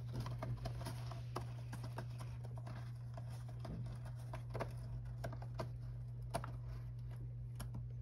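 Cat's claws scratching and pawing at a cardboard scratching pad: about a dozen faint, irregular scrapes and clicks over a steady low hum.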